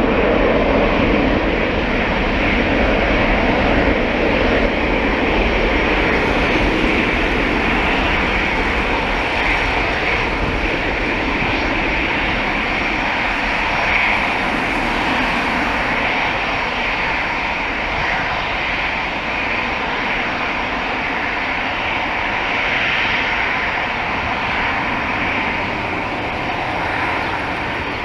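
Boeing 737-800's two CFM56-7B26 turbofans at takeoff thrust through the takeoff roll and liftoff: a loud, steady jet engine noise that slowly fades as the aircraft moves away.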